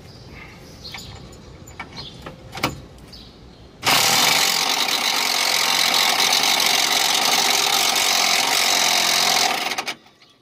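Cordless impact wrench running steadily on a rear suspension nut for about five and a half seconds, starting suddenly about four seconds in and cutting off near the end. A few light clicks of the tool and parts come before it.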